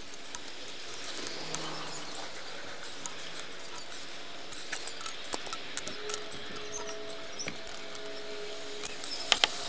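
Light scratchy clicking and rubbing of a brass threaded fitting being turned by hand onto a backflow preventer, with a few sharper metal clicks near the end as an adjustable wrench goes onto the fitting. A steady hiss runs underneath.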